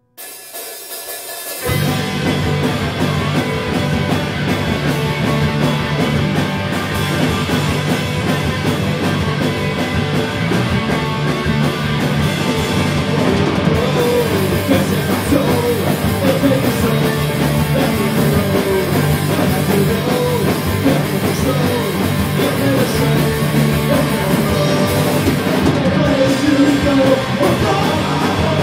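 A rock band playing, with a drum kit. The full band comes in about a second and a half in, after a quieter opening.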